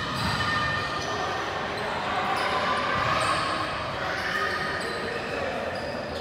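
Indistinct chatter of players and spectators, echoing around an indoor gymnasium.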